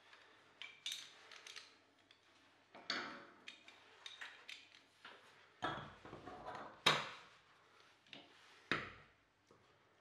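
Plastic socket insert and cover plate being pushed and fitted into a cavity wall box in plasterboard by hand: irregular clicks, knocks and scrapes of hard plastic, with a few sharper snaps about a second, three, seven and nearly nine seconds in.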